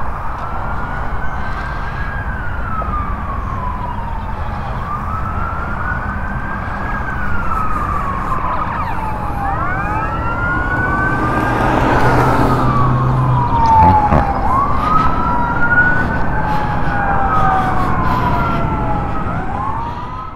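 Emergency vehicle siren wailing, its pitch climbing and falling slowly every few seconds. Around the middle a second siren overlaps it, and this is where it is loudest. A steady low rumble runs underneath.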